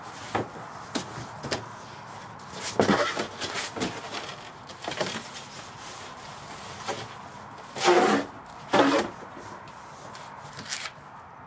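Flaps of a large cardboard shipping carton being pulled open and folded back: cardboard scraping and rubbing, with a few sharp clicks near the start and louder swishes about three seconds in and twice around eight to nine seconds.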